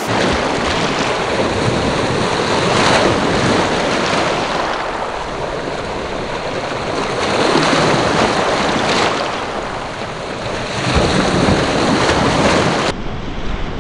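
Small lake waves, about a foot high, breaking and washing up a pebble shore, surging louder every few seconds, with wind buffeting the microphone.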